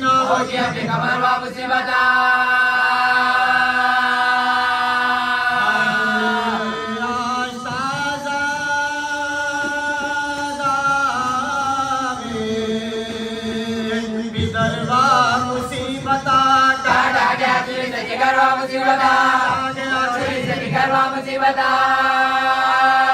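Voices chanting a Shia mourning lament in long held notes that bend in pitch.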